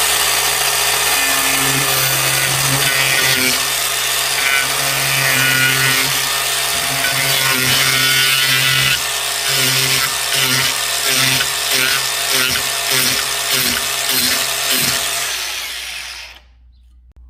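DeWalt angle grinder fitted with a 4-inch chainsaw-chain wood carving disc, running at full speed and cutting into a wooden board. From about halfway it makes a series of short quick cuts, the motor dipping with each bite about twice a second. It stops shortly before the end.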